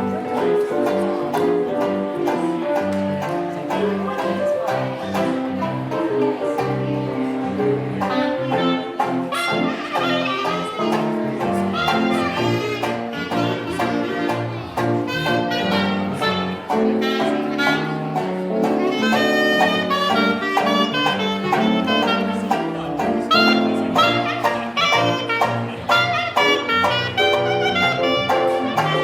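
Jazz band playing an instrumental passage, with horns carrying the melody.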